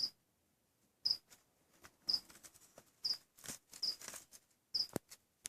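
A cricket chirping about once a second, each chirp short and high. Faint rustling and light clicks, as of a bag being handled, fall between the chirps.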